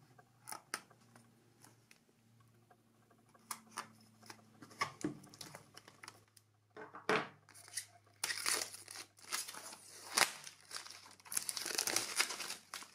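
Packaging being opened by hand: scattered light clicks and taps at first, then from about eight seconds in continuous crinkling and tearing of the wrapping.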